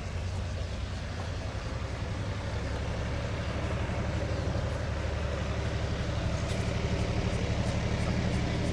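Locomotive on the move: a deep, steady engine hum that grows slowly louder as the train draws closer, with faint repeated ticks above it.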